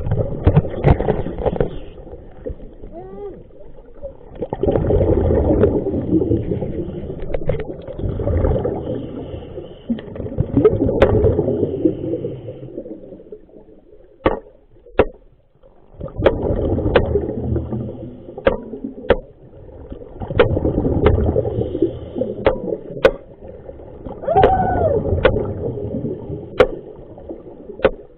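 Water sloshing and gurgling in surges every few seconds, with many sharp clicks and knocks over it.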